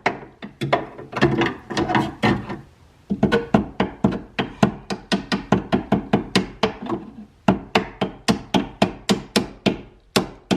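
Fast, regular hammer-like knocking, about four sharp strikes a second, in runs broken by short pauses.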